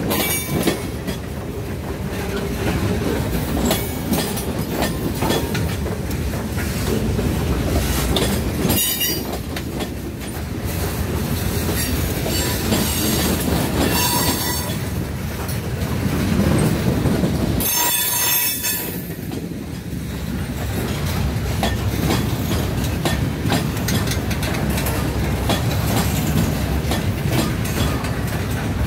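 Freight cars of a long manifest train rolling past close by, their steel wheels clacking over the rail joints in a steady run. A few short bursts of high wheel screeching come about a third and about halfway through.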